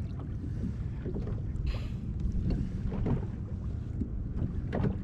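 Wind buffeting the microphone as a steady low rumble, with a brief hiss about two seconds in.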